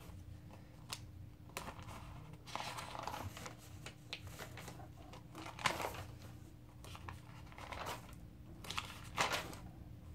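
Paper rustling as pages are handled and turned, in several short, irregular bursts, over a faint steady hum.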